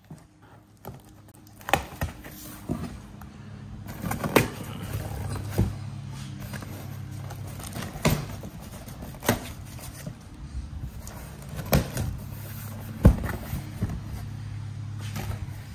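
Cardboard shipping box being opened and handled by hand: its flaps are pulled open, giving scattered sharp knocks and scrapes. A steady low hum runs underneath.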